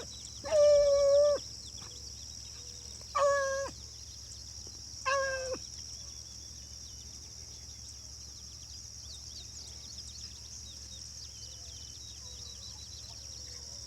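Rabbit-hunting hounds baying on a trail: three drawn-out bawls, each about half a second long and a couple of seconds apart, the first near the start and the last about five seconds in.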